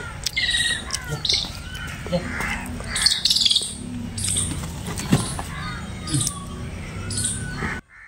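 Several birds chirping, squawking and calling, with short chirps and gliding calls overlapping, over a low steady hum; the sound cuts off suddenly near the end.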